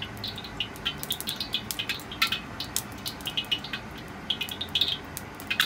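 Hot oil in a wok crackling with scattered, irregular little pops and spits as it is reheated to frying temperature for the next batch of eggplant.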